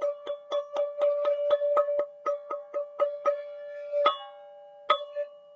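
A tuned metal sound-healing instrument struck rapidly on a single ringing pitch, about four strikes a second. Near the end it slows to two louder strikes that are left to ring.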